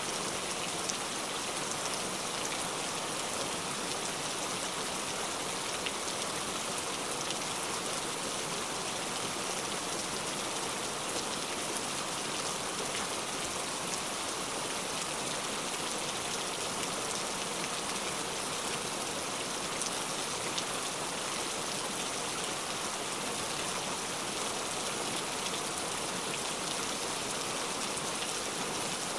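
Steady rain falling: a constant, even patter of many small drops that never lets up.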